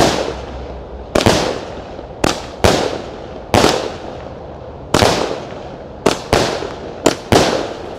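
A 49-shot 20 mm firework cake (Mystery Strobe) firing: about a dozen sharp bangs with echoing tails, spaced a second or so apart at first and coming faster after about six seconds.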